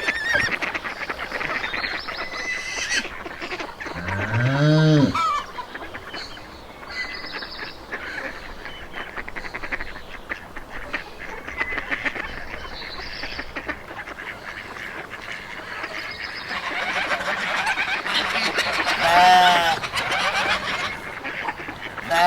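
A flock of geese honking and chattering, with a loud low drawn-out call about four seconds in and a sharp honk near the end.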